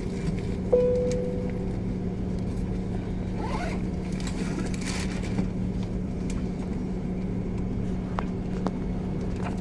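Steady cabin hum of an Airbus A330-300 on the ground before take-off, with a single fading ding about a second in and a few small clicks and rustles.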